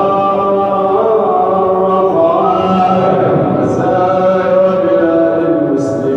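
Quran recitation: a single voice chanting Arabic verses in melodic style, drawing out long held notes that step and glide in pitch, with short hissing consonants between phrases.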